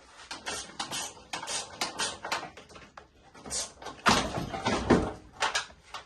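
Tools and engine parts being handled: a run of short clatters and knocks, loudest about four to five seconds in.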